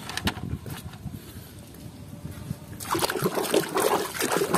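A few light knocks, then from about three seconds in a hand splashing and sloshing in a tub of muddy water.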